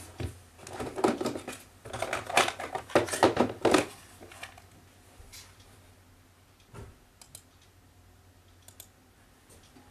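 Rummaging for a cable among small hard objects: a quick run of clicks, rattles and clatters for about four seconds, then a few single clicks later on.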